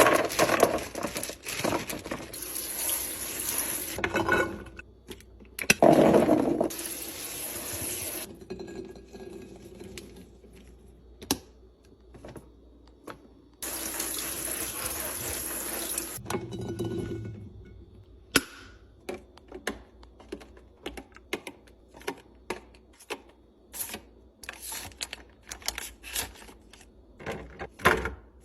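Liquid being poured or running into a container in several stretches of steady hiss, then a long series of small clicks and taps from items being handled and set down.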